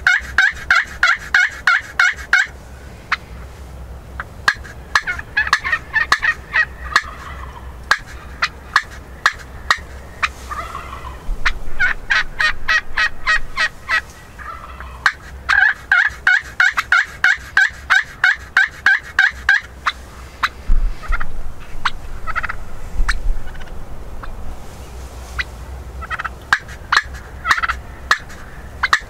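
Wild turkeys gobbling over and over, in bouts of rapid rattling notes a few seconds long, with fewer, scattered calls over the last third.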